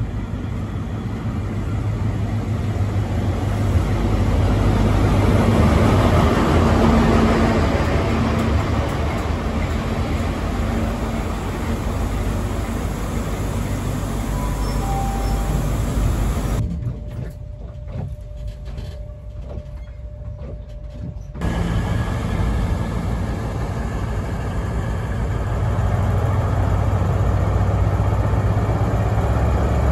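High Speed Train (InterCity 125) running into a station: the Class 43 power car's MTU V16 diesel gives a steady low drone over rail noise, growing louder as the train draws near. Midway there is a quieter stretch, and near the end another HST power car's diesel drone builds up again.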